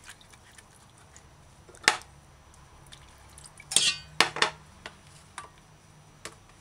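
Hands washing vegetables in a stainless steel bowl of water: a few brief splashes and clinks against the bowl, the loudest about four seconds in.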